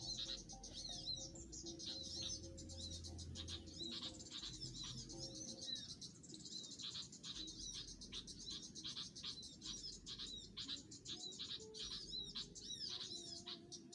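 Small songbirds chirping and calling in quick, repeated high notes, many calls a second, over a faint low hum.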